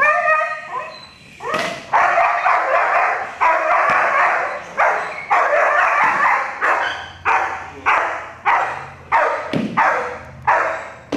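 Young protection dog barking in a long, steady run, about one and a half barks a second. It is guard barking at an approaching decoy on the 'watch him' command.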